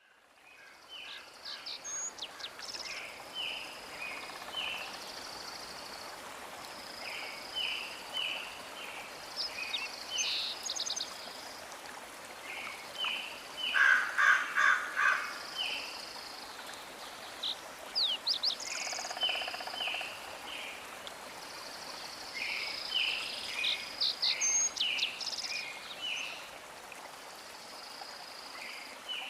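Several birds chirping and singing in short repeated phrases and trills over a steady rushing hiss. A loud series of repeated notes comes about halfway through.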